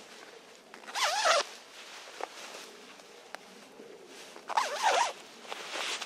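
A clothing zipper pulled twice, two quick strokes a few seconds apart, each with a buzz that wavers in pitch as the pull speeds up and slows.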